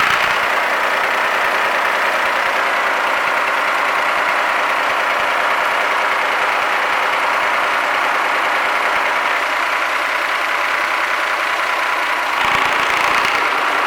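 Yanmar 6CHK-HT six-cylinder marine diesel engine running steadily, getting a little louder with more low rumble near the end.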